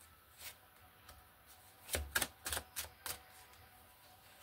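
Cards from a plaid-backed tarot deck being handled and laid down on a table, making sharp papery snaps. One snap comes about half a second in, a quick run of five or six comes about two seconds in, and another comes at the end.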